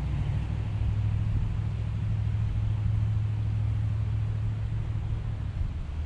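Steady low rumble of road traffic on the bridge overhead, easing slightly near the end.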